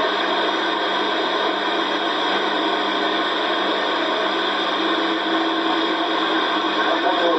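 Steady hiss of static from a CB radio receiver with no station coming through.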